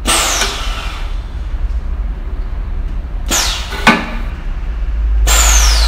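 JLYE-10T hydro-pneumatic riveting press cycling on the foot pedal: three hissing blasts of compressed air, each with a falling whistle, and a sharp knock just before four seconds in, over a steady low hum.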